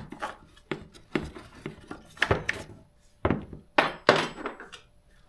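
Several sharp knocks and clunks, spaced unevenly, from chainsaw parts and hand tools being handled as the clutch cover is taken off a Stihl MS200T.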